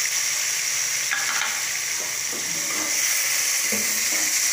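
Browned onions, ginger-garlic paste and tomatoes sizzling steadily in hot oil in an aluminium pot, stirred with a spoon, with a few short clinks and scrapes of the spoon against the pot.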